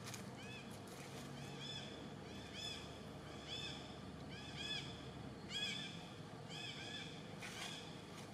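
An animal's short, high calls repeated about a dozen times, roughly one every half second or so, each rising and then falling in pitch.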